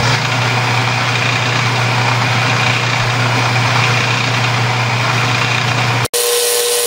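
Metal lathe running with its three-jaw chuck spinning while the tool takes a light turning cut on the end of a short tube: a steady motor hum with the hiss of the cut. About six seconds in the sound drops out for an instant and carries on with a steady higher hum.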